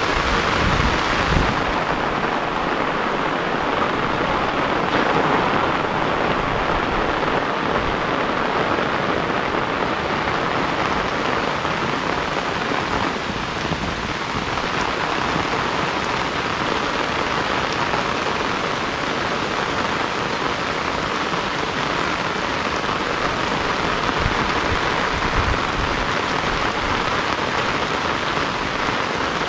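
Heavy rain falling steadily, with a few low gusts of wind in the first couple of seconds.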